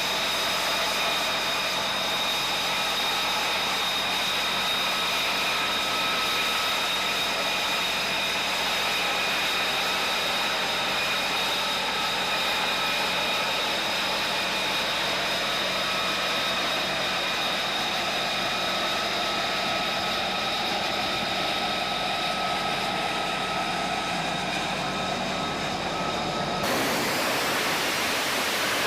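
F-35B fighter jet's engine running, a steady high turbine whine over rushing jet noise. Near the end it switches abruptly to a broader rushing roar without the whine.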